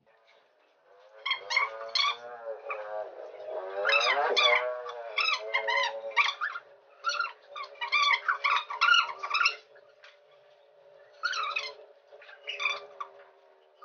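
Repeated high animal cries: a run of many short, wavering calls over the first ten seconds, then two more near the end.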